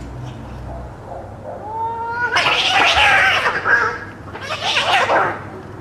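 Cats fighting: a rising yowl about one and a half seconds in, then two loud, harsh screeching bursts.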